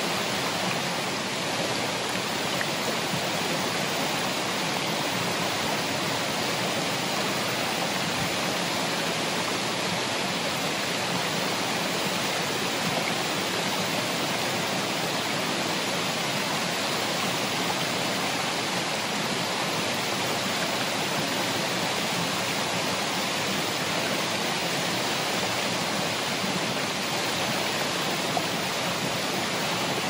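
Ariake Falls waterfall: a steady, even rush of falling water that does not change.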